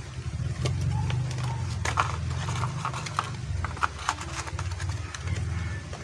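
Irregular sharp clicks and taps of a plastic puzzle and its packaging being handled and fitted back into the box, over a steady low hum.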